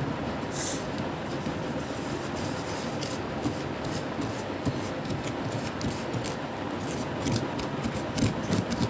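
A metal spoon scraping and stirring a gritty, salt-based play-sand mixture in a bowl: a run of small scrapes and clicks, busier near the end, over a steady background hiss.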